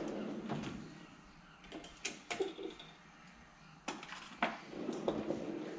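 Workshop handling noise: a rustle at the start, then a few scattered sharp clicks and knocks as tools and parts are moved about.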